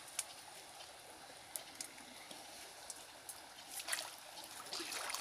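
Water trickling and lapping around a person wading waist-deep, with scattered small drips, then a louder splash about four seconds in as he lowers his arms and body into the water.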